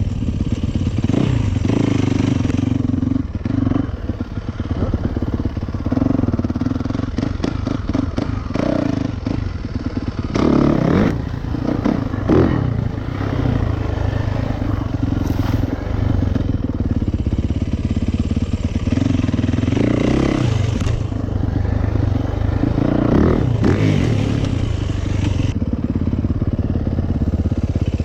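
A 2019 Yamaha YZ450FX's single-cylinder four-stroke engine being ridden off-road, revving up and falling back again and again as the rider works the throttle. A few short clattering knocks come about a third of the way in.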